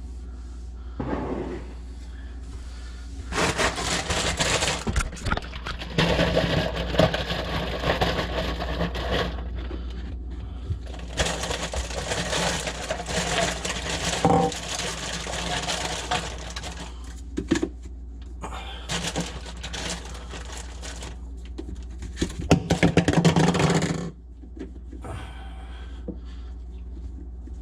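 Intermittent scraping and clattering from work on plastic sink drain pipes, in several stretches of a few seconds each with quieter gaps between.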